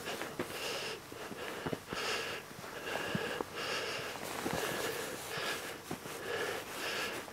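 A person breathing hard close to the microphone: quick, hoarse breaths a little more than once a second, with a few faint clicks of handling or footsteps.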